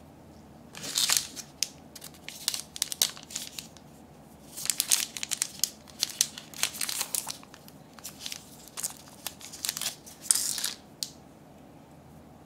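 Thin plastic wrapper of a Band-Aid-shaped gummy candy crinkling and crackling as it is peeled and torn open by hand, in irregular bursts of sharp crackles that begin about a second in and stop shortly before the end.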